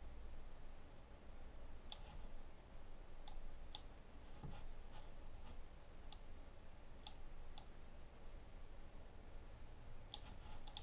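Computer mouse clicking: single sharp clicks at irregular intervals, about eight in all, over a faint low hum.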